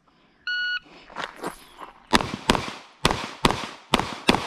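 An electronic shot timer beeps once, then a Walther PDP pistol fires six shots in three quick pairs, each shot trailing a short echo.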